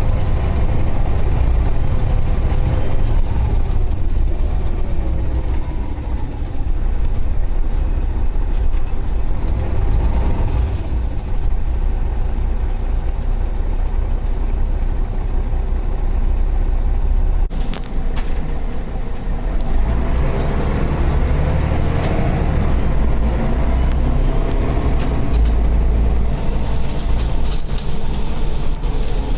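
City bus driving, heard from on board: a continuous low engine and road rumble, with the engine note rising and falling as it speeds up and slows. A few sharp rattles come near the end.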